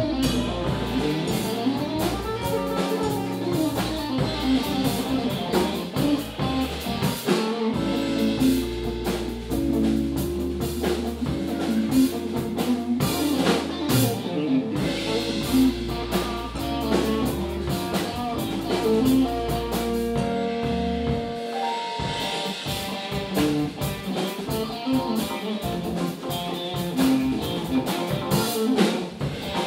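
Live band music with a drum kit keeping time on drums and cymbals over pitched chords and melody; a low bass line drops out about two-thirds of the way through while the drums carry on.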